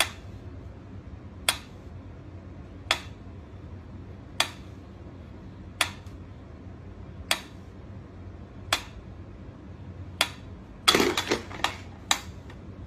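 Mechanical pendulum metronome ticking at a slow steady beat, one sharp tick about every second and a half. Near the end a quick run of several louder knocks breaks in.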